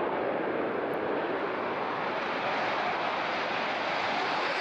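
Eurofighter Typhoon's twin jet engines at takeoff power as the fighter lifts off the runway: a steady, loud rush of jet noise.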